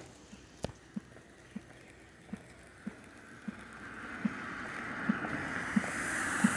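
Footsteps on wet pavement, a little under two a second, while the hiss of a car's tyres on the wet road grows steadily louder from about halfway through as the car approaches.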